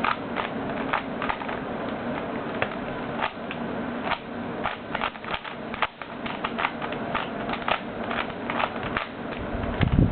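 Plastic Siamese Rubik's cube, two 3x3 cubes fused together, clicking and clacking as its layers are turned in quick, irregular moves, over a steady hiss.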